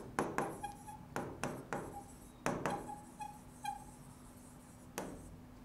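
A pen writing on an interactive display's screen: irregular taps and short scratchy strokes with a few faint squeaks, pausing near four seconds in before one last tap.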